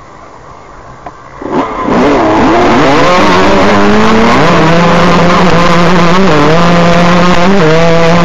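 Dirt bike engines at a cross-country race start. It is fairly quiet at first; about a second and a half in, the engines rev hard and the bikes pull away, loud, with the engine pitch climbing and then shifting up and down in steps.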